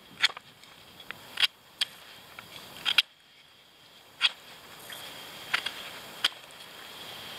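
Folding knife carving a wooden stick: about eight sharp cuts at uneven intervals, each stroke of the blade through the wood ending in a crisp snick.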